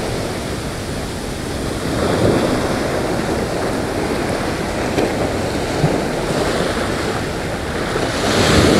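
Ocean surf washing up a sandy beach, with wind on the microphone; the wash swells about two seconds in and again near the end.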